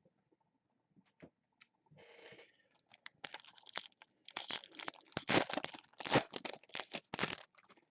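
A foil trading-card pack wrapper being torn open and crinkled, a dense crackle of plastic foil lasting a few seconds.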